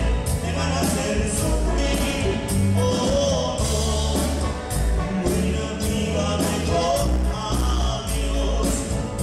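Cumbia band playing live, with a steady beat and strong bass under a voice singing.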